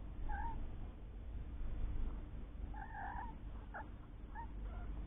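Three-week-old kittens mewing: about five short, high-pitched cries, the longest about three seconds in, over a steady low rumble.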